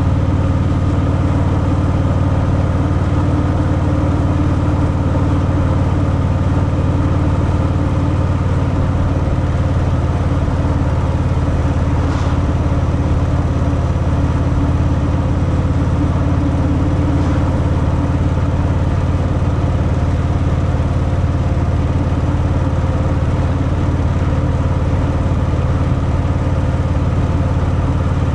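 Harley-Davidson Fat Boy's V-twin engine running steadily through its stock exhaust, with an even, unchanging note.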